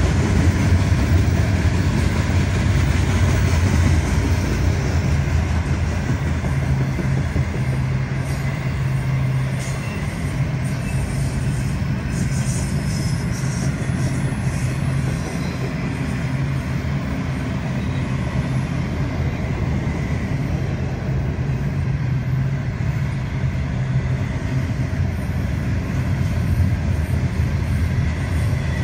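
Freight train cars rolling past on the rails with a steady low rumble. Open hoppers give way to flatcars and then double-stack intermodal well cars.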